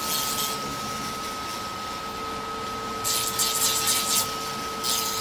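Electric dust collector fan running with a steady whine, while sanding on a 3D print makes two bursts of scratchy hiss, about three seconds in and again near the end.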